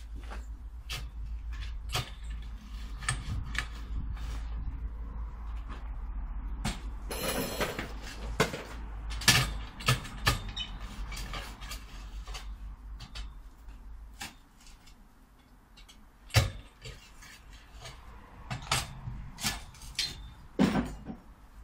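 A long-handled narrow spade digging out a fence post hole: irregular knocks and scrapes of the metal blade against soil and stones, with a longer scraping rasp about seven seconds in.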